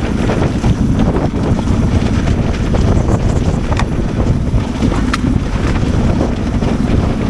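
Yamaha Ténéré 700's parallel-twin engine running as it is ridden off-road, mixed with heavy wind buffeting on the microphone. A couple of sharp clicks come in the second half.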